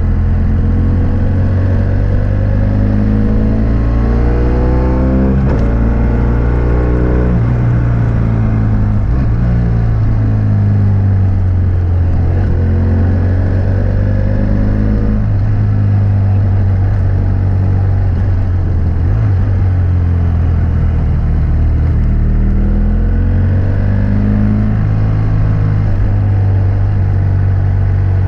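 BMW F800S parallel-twin engine breathing through a GPR Furore Nero aftermarket exhaust with its dB-killer fitted, heard from a bike-mounted mic while riding. Revs climb and fall repeatedly with the throttle, rising over the first few seconds and then dropping sharply about five seconds in.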